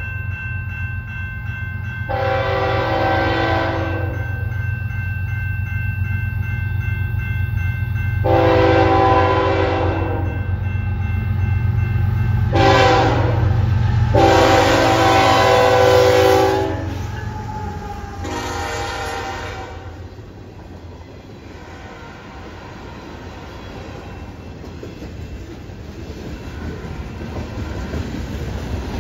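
Diesel freight locomotives blowing the horn for a grade crossing: long, long, short, long, then one more blast, over the steady low rumble of the engines. A crossing signal bell rings through the first half. From about twenty seconds in, the freight cars roll past with a quieter rumble and wheel clatter.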